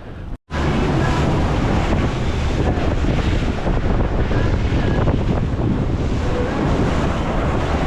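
Wind buffeting the microphone over the wash of the sea, a loud, steady rough roar that starts abruptly after a short dropout.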